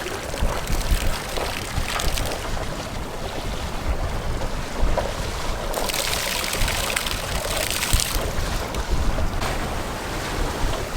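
Wind buffeting the microphone over water rushing along a sailboat's hull under sail, with a louder hiss of water for about two seconds past the middle.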